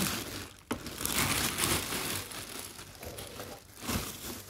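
Clear plastic packaging wrap crinkling and rustling as it is pulled off a parcel by hand, with a couple of sharper snaps.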